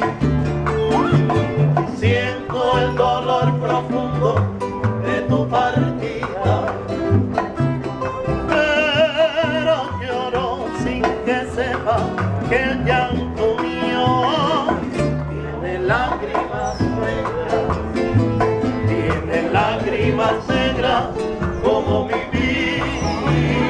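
Small Cuban son group playing live: a Cuban tres plucking bright steel-string lines over a strummed acoustic guitar and bongos, with men's voices singing at times.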